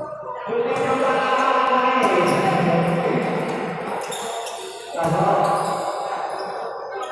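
Basketball bouncing and players moving on an indoor court, with music with singing playing over it; the music is the loudest sound.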